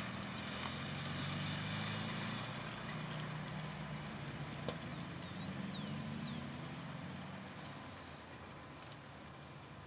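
Low, steady jet engine noise from a Boeing 777-200F freighter's GE90 turbofans as it climbs away after takeoff, slowly fading as the aircraft recedes.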